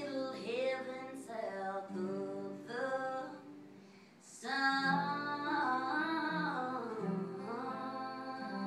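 A woman singing a slow country song live, accompanied by two strummed acoustic guitars. The music drops away briefly about four seconds in, then her voice comes back in a long, sliding sung line.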